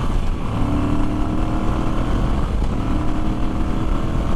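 Moto Guzzi V85TT's 853 cc air-cooled V-twin accelerating hard up to highway speed. Its pitched engine note breaks off briefly about half a second in and again about two and a half seconds in, as it shifts up through the gears.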